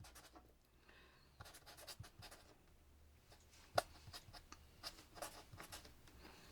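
Faint scratching of handwriting on paper, stroke after stroke, with a light tap about four seconds in.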